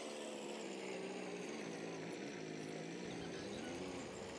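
A vehicle engine running steadily, its pitch wavering slightly a couple of times.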